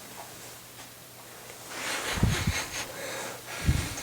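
Harbor Breeze ceiling fan running on medium speed: a faint steady motor hum under a rush of air. Two low thumps hit the microphone, about two seconds in and near the end.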